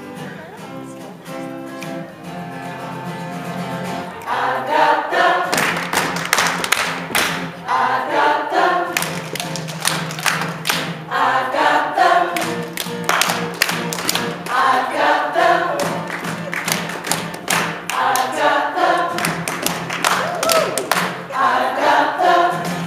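A group of voices singing a children's blues song. About four seconds in it gets louder, with a steady run of sharp claps joining the singing.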